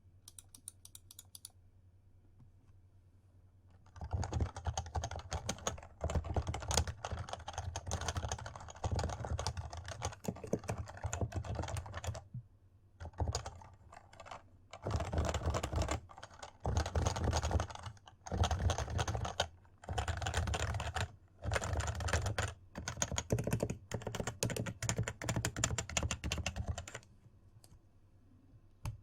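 Typing on a compact 60% HHKB-layout keyboard: fast runs of keystrokes in bursts with short pauses, starting about four seconds in and stopping a couple of seconds before the end.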